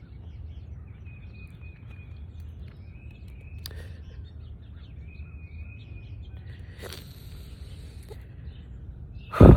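Outdoor ambience: a steady low rumble with a bird giving several short, high, level chirps. A short, loud, sudden noise comes near the end.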